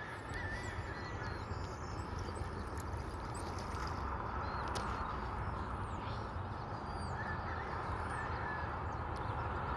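Outdoor ambience: a steady rushing noise with scattered short, high, falling bird chirps over it.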